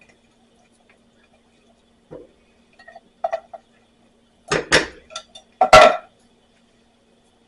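Metal clanking against a cast iron pot as canned beans are emptied into simmering chili: a few light taps, then two loud clatters about a second apart.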